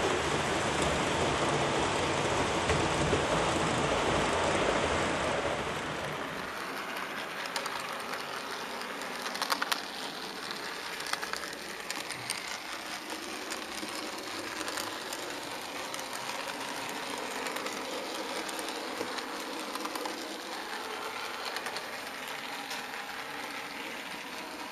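HO scale model train running on track. It makes a dense rumble for the first five or six seconds, then changes to a thinner, quieter rattle with scattered clicks of wheels over the rails, as heard riding on board the model train.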